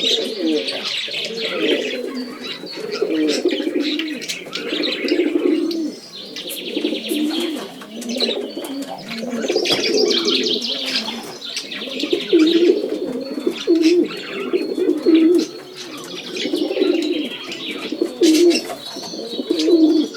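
Several pigeons cooing over and over, with a chorus of smaller aviary birds chirping and trilling high above them.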